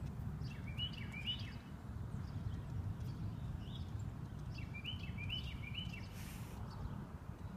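A small bird chirping in two short runs of quick notes, one about a second in and one past the middle, over a steady low outdoor rumble.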